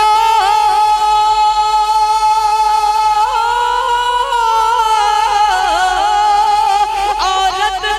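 A man's voice singing a naat through a microphone, holding one long note with small melismatic turns. The pitch lifts slightly in the middle before settling back.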